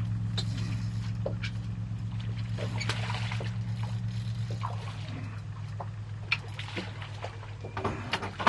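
A boat motor's steady low hum, slowly fading, with water splashing and a few sharp knocks, the loudest near the end.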